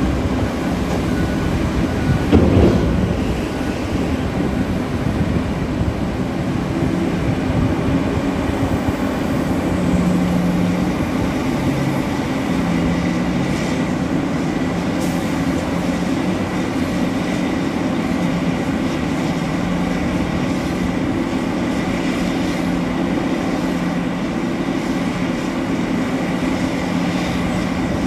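Heavy mining machinery, a large hydraulic excavator and a haul truck, with their big diesel engines running in a steady low drone. About two and a half seconds in there is a single loud thump.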